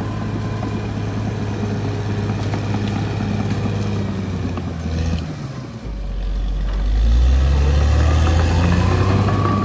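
Caterpillar D6R XL bulldozer's diesel engine running steadily. About halfway through, the sound dips briefly, then gives way to a deeper, louder engine note that rises slightly in pitch and holds.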